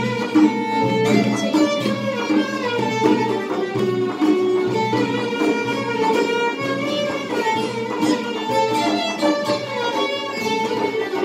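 Small string ensemble playing a melody: three violins together over plucked-string accompaniment from a classical guitar and other plucked lutes.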